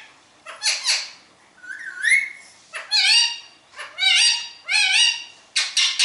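Pet green parakeet calling in a run of short whistled notes that bend in pitch, about one a second, one of them a clear rising whistle.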